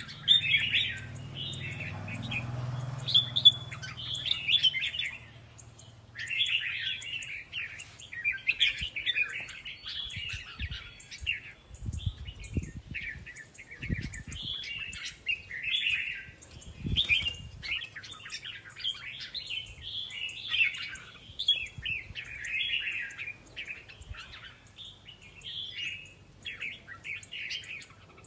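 Caged red-whiskered bulbuls singing in competition: short, bright warbled phrases repeated over and over, several birds answering one another with hardly a gap. A few low thumps come near the middle.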